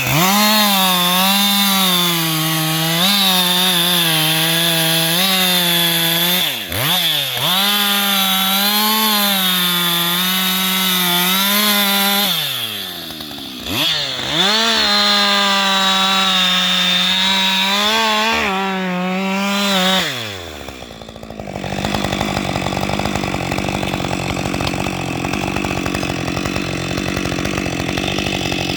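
Husqvarna 560XP two-stroke chainsaw running at full throttle while cutting wood, its pitch wavering under load and dipping briefly twice as the throttle is eased. About two-thirds of the way through the pitch falls away, and a steadier, noisier running sound follows.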